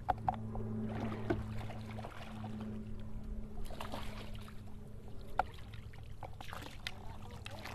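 Water sloshing and splashing at the side of a kayak as a hooked redfish is scooped into a landing net, with a few light clicks and a steady low hum underneath.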